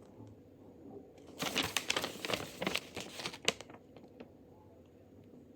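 Packaging crinkling and rustling as it is handled, in a dense burst of about two seconds starting over a second in, with fainter rustles around it.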